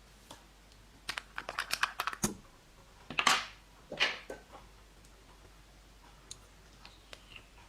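Slime being squeezed and worked by hand: a quick run of about a dozen sticky clicks and pops starting a second in, then two louder, longer squishes about a second apart, then only faint ticks.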